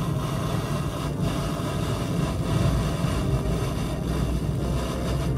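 Steady road and engine noise of a moving car, heard inside the cabin.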